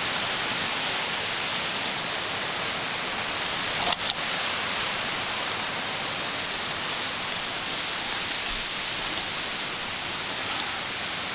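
Steady, even rushing of a rain-swollen creek running high, with a brief crackle about four seconds in.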